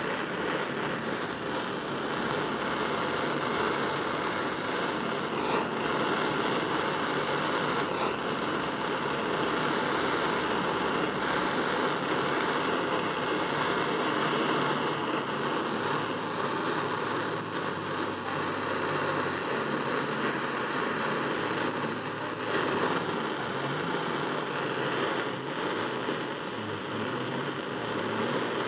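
Soldering torch flame running with a steady roar, heating a silver belt buckle so that the solder flows on several small pieces at once.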